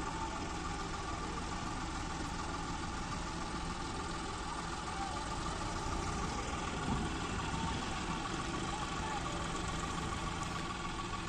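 Diesel tractor engine idling steadily nearby, an even drone.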